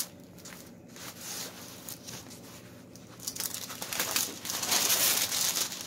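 Clear plastic bag around a diamond painting canvas crinkling as it is handled: soft rustling at first, louder crinkling in the second half as the plastic is lifted.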